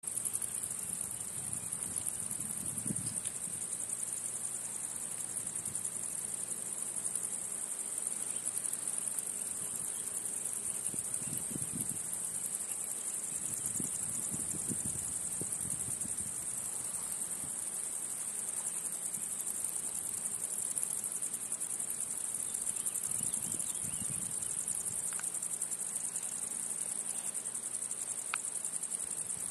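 Steady, high-pitched chorus of singing insects that never breaks, with a few soft low rumbles now and then underneath.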